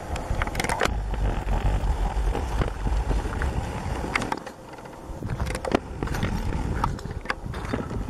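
Wind buffeting the microphone in an uneven low rumble, with scattered sharp clicks and knocks, loudest a little past halfway.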